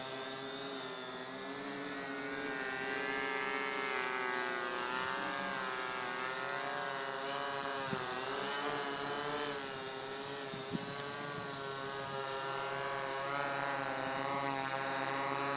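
Quadcopter's four electric motors and propellers buzzing in flight, their pitch rising and falling together over a steady high whine.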